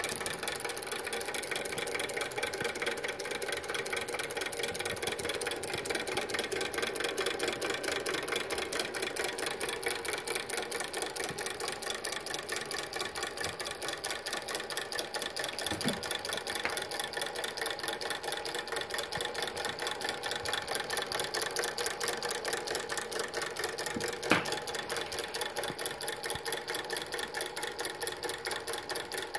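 The working piston engine of a custom-made miniature semi truck model running with a steady, rapid mechanical clatter, much like a small sewing machine. Two brief knocks stand out, about halfway through and again near the end.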